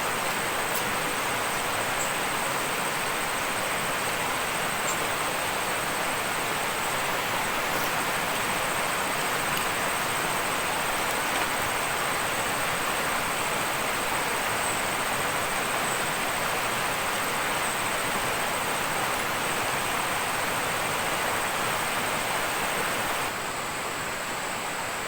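Steady rushing of water, with a thin, steady high whine above it. The rush drops a little in level near the end.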